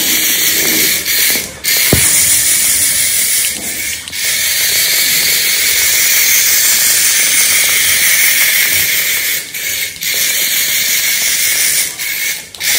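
Battery-operated remote-control ladybug toy running on a tile floor: its small motor and geared walking legs make a steady, high, hissing whir that dips briefly several times. A single sharp click comes about two seconds in.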